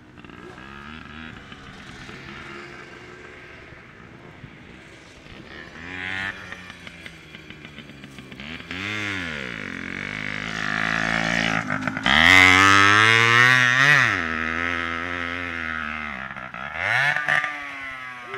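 Small dirt bike engine revving up and down as it is ridden, several rising-and-falling revs, the loudest and longest about twelve seconds in.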